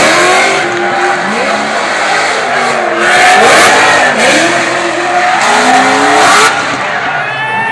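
Two drift cars sliding in tandem, their engines revving up and down hard while the tyres screech. The tyre noise is loudest in two stretches, a few seconds in and near the end.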